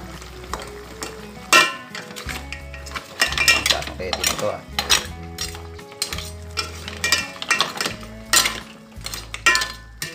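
Metal ladle stirring mussels in their shells and broth in an aluminium pot, with a run of irregular sharp clinks and scrapes against the pot and the shells.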